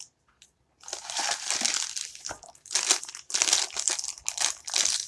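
Crinkly packaging of a blind-box vinyl figure being handled and torn open, in quick irregular crackles starting about a second in.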